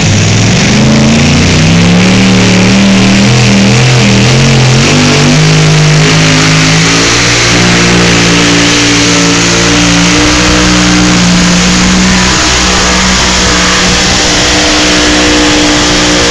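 Pulling tractor's engine at full throttle, very loud, dragging a weight-transfer sled down the track. Its pitch climbs unevenly over the first few seconds, then holds high and steady.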